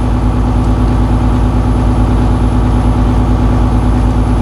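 Volvo VNL semi truck's diesel engine running steadily during a computer-commanded DPF regeneration, in the crystal sublimation stage that burns off crystallised deposits. A low rumble with a steady hum that doesn't change.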